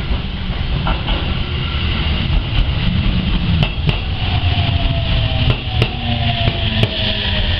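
Aichi Loop Railway 2000 series electric train pulling into a station, with a steady heavy rumble of wheels on rail and paired clacks as its wheels cross rail joints. From about four seconds in, a thin whine falls slowly in pitch: the traction motors as the train slows to a stop.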